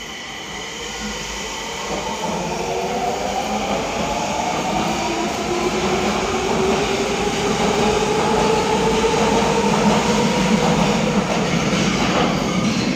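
Nagoya Meijo Line subway train pulling out of the station, its motors giving a whine that rises in pitch as it picks up speed, over a wheel rumble that grows louder.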